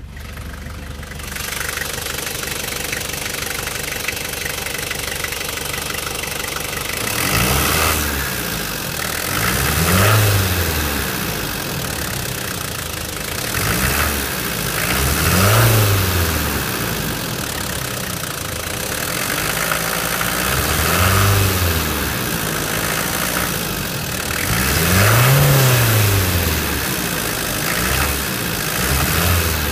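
Nissan TD27 ETi 2.7-litre turbo-diesel engine idling steadily, then revved in short blips from about seven seconds in: about six of them, each rising in pitch and falling back to idle.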